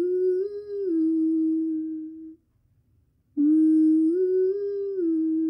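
A woman humming the same short melodic line twice, from about 300 Hz to just under 400 Hz, with a small step up and back down in pitch. The two lines are separated by a pause of about a second in which the breath is taken without any audible gasp: a demonstration of letting the air flow in silently between phrases.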